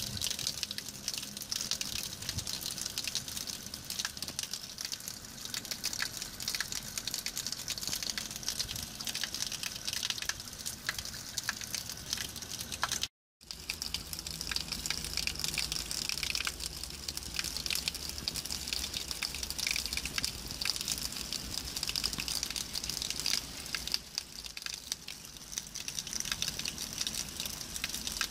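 A thin stream of water pouring steadily from a spring's pipe spout and splashing onto wet rock. There is a brief gap about halfway through.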